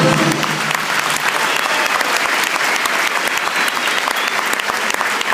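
An audience applauding steadily, many hands clapping, just after the skating music stops at the very start.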